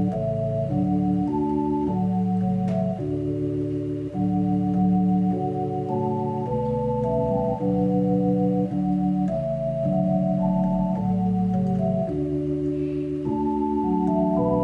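Background music of slow, sustained organ chords, each held for about a second before moving to the next.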